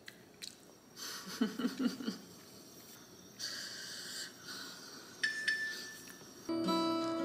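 Close-up eating sounds: a metal fork and spoon clicking and clinking against a ceramic pasta bowl, with spells of slurping and chewing of spaghetti. Plucked-string background music comes in near the end.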